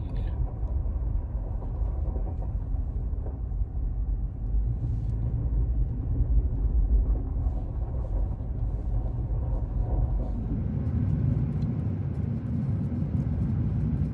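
Motor vehicle driving, a steady low rumble heard from inside; about ten seconds in the rumble shifts higher, with light rattling.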